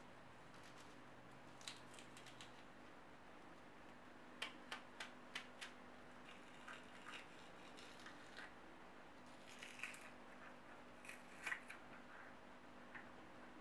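Layers of a red onion being pried apart by hand, giving faint, crisp cracking clicks as they separate: a quick run of about five clicks roughly four and a half seconds in, a few scattered ones after, and a louder cluster near the end.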